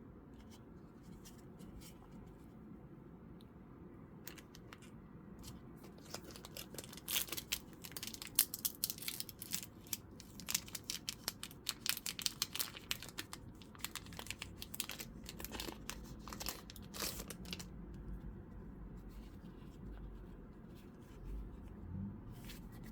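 Foil Pokémon booster pack wrapper being torn open and crinkled in the hands. A dense run of sharp crackles fills the middle stretch, with quieter handling before and after.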